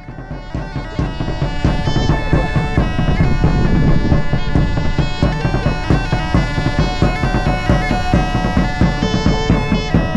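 Instrumental folk-style music with a wind-instrument melody over drums, fading up over the first two seconds.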